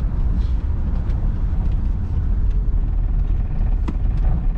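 Classic car driving, its engine and road rumble heard steadily from inside the cabin, with a light knock about four seconds in.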